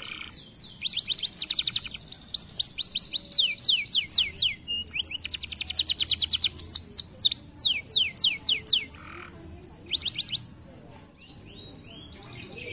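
Domestic canary singing: fast trilled phrases of many repeated, quickly falling notes, one phrase after another. The song stops briefly about nine seconds in, gives one short burst, and then falls quiet near ten seconds.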